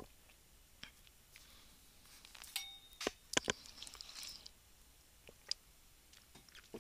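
Mostly quiet, broken by a few faint, scattered clicks and ticks, with a small cluster of them about three seconds in.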